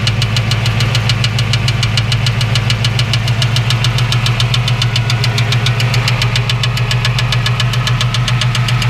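1989 Ford Mustang GT's 5.0-litre V8 running steadily, with a rapid, regular scrape in time with the engine from the flexplate area. The owner suspects the flexplate is rubbing the block plate, or a starter fault, after the starter stayed engaged when its solenoid stuck.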